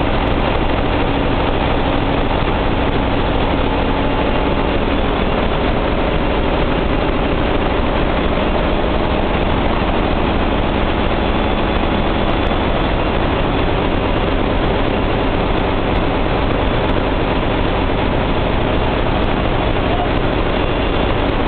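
Cruise ship engine-room din: large diesel generator engines and other machinery running, a constant drone with a few faint steady tones mixed in.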